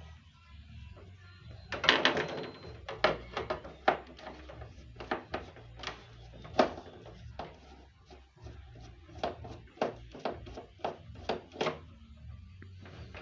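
Irregular plastic clicks, knocks and a short rattle, from a split air conditioner's indoor unit being handled and its casing taken apart. A steady low hum runs underneath.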